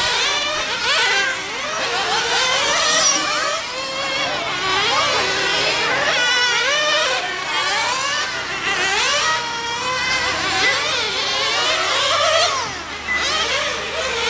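Several 1/10-scale nitro RC cars' small two-stroke glow-fuel engines running at high revs. Their high-pitched whines overlap and rise and fall over and over as the cars accelerate and lift off through the corners.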